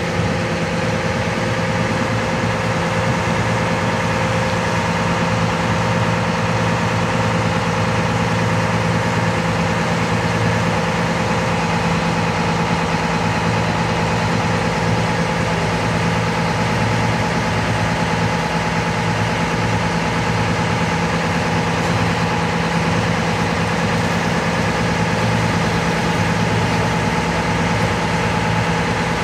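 Small passenger ferry's engine running steadily under way, heard from on board as a constant drone.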